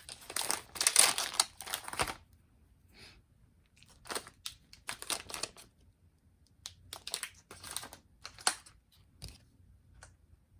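Phone box packaging being handled and torn open: a dense stretch of crinkling and tearing for about two seconds, then short scattered rustles and light taps.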